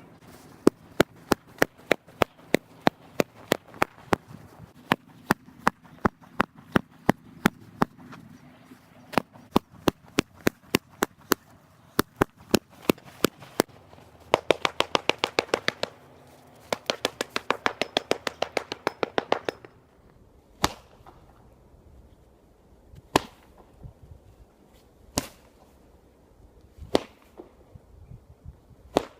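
A carpet being beaten with a carpet beater, sharp slapping strikes. They come about two a second at first, speed up to several a second around the middle, then slow to single strikes about two seconds apart.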